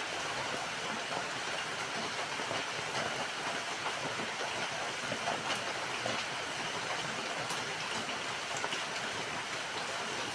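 Steady rain falling: a dense, even hiss with scattered faint drop ticks.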